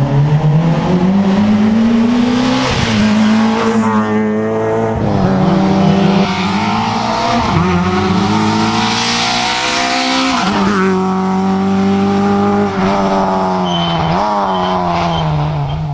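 Rally car engines at full throttle on a closed stage. The pitch climbs steadily and then drops sharply at each gear change, again and again.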